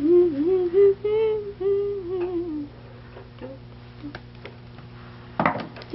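A woman humming a wordless tune to herself, stopping a little under three seconds in, over a low steady background hum. A brief sharp burst of sound comes near the end.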